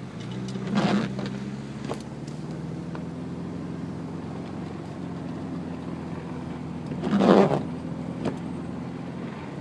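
Cabin sound of a 1998 Subaru Legacy Outback's flat-four engine running at a steady hum while the car drives through snow. Two short, louder noises come about a second in and near the end.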